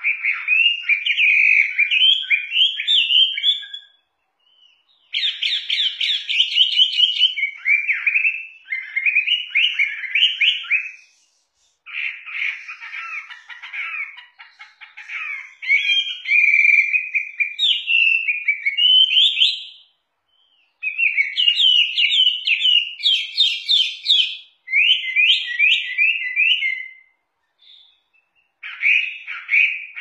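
Male Chinese hwamei (Garrulax canorus) singing: loud, fast runs of varied whistled and trilled notes, sliding up and down, in bouts of several seconds with short pauses between them.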